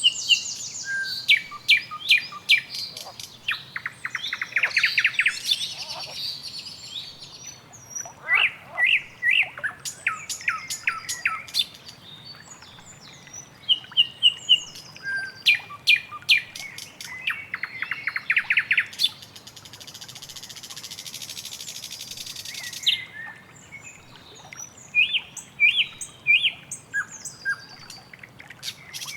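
Several birds chirping and calling over one another, with fast trills and runs of repeated notes. A steady high hiss joins for a few seconds past the middle.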